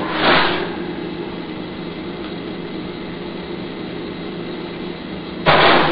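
Metal oven rack and pan being handled in an electric oven: a short scrape about a third of a second in and a louder clatter near the end, over a steady hum and hiss.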